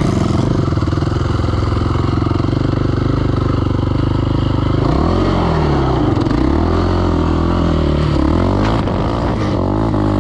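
KTM 525 XC quad's single-cylinder four-stroke engine heard on board, running steadily at first, then from about halfway revving up and easing off several times as the quad pulls away along the road.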